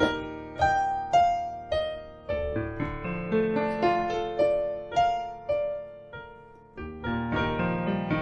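Digital stage piano played solo in a medley of songs that sound alike. A melody of struck notes over chords, each note fading after it is struck. The playing thins out briefly about six seconds in, then fuller chords come back in.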